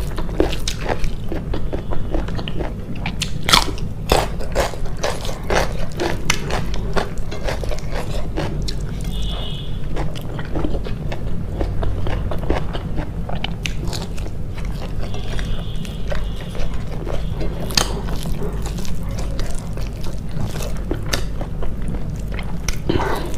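A person chewing and biting food close to the microphone, with many crisp, irregular crunches and mouth clicks over a steady low hum.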